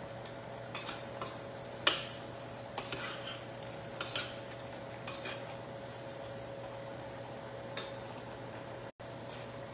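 Kitchenware clinking: a utensil and small bowls or containers knocked together on the counter in a scattering of sharp clinks, the loudest about two seconds in, over a steady low hum.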